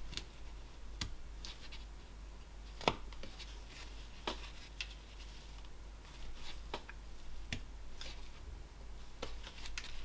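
Flexcut roughing knife cutting basswood: short slicing and scraping strokes with sharp clicks as chips snap off, at irregular intervals, the loudest about three seconds in.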